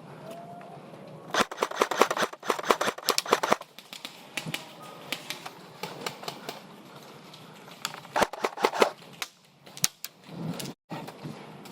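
Airsoft electric rifle firing in rapid full-auto bursts: a long burst of about two seconds starting just over a second in, then a shorter burst around eight seconds in and a lone shot shortly after.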